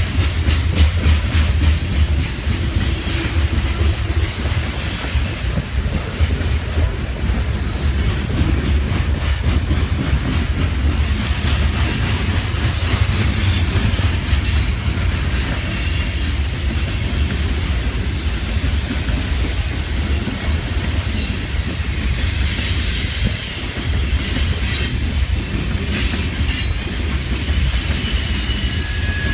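Covered hopper cars of a BNSF grain train rolling past in a steady rumble, their wheels clicking over the rail joints. Now and then a brief faint wheel squeal comes through, around the middle and near the end.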